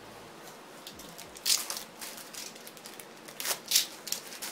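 Crinkling and rustling of a tack cloth being unwrapped and unfolded, in a few short bursts.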